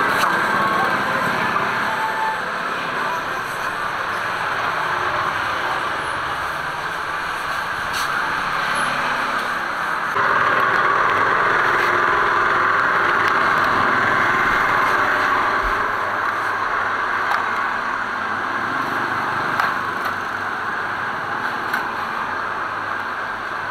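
Steady street noise with traffic running, a constant wash with no distinct events, stepping up in level about ten seconds in.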